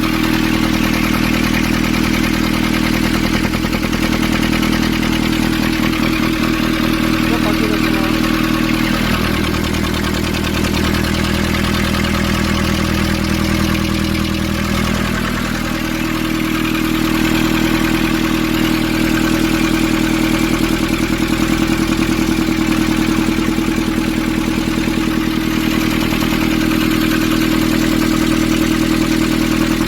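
Nissan Urvan's ZD30 four-cylinder diesel engine idling steadily with a diesel clatter; its pitch drops for several seconds about a third of the way in, then returns to the same steady idle.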